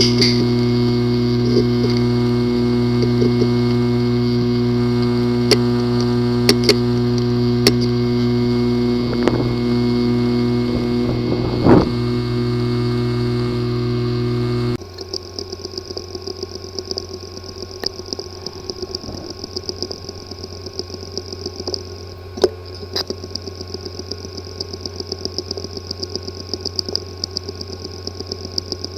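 Hard drive with a physically damaged disk assembly running: a steady buzzing hum with a few sharp clicks. About halfway through it switches abruptly to a quieter, fast ticking chatter over a high whine.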